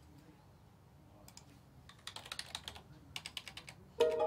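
Typing on a computer keyboard: irregular runs of keystrokes begin about a second in. Music with steady tones starts near the end, louder than the typing.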